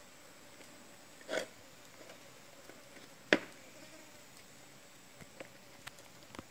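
Hands packing lemongrass stalks into a split bamboo tube: a short rustle about a second in, one sharp knock a little after three seconds, and a few faint clicks near the end.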